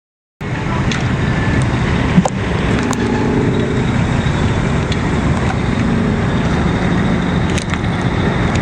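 Truck engine running steadily among road traffic, cutting in abruptly about half a second in. A single sharp click about two seconds in is the loudest sound, with a few fainter ticks later.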